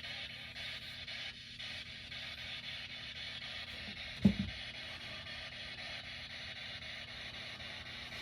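A single short, dull thud about four seconds in, with a quick double knock, over a steady background hiss.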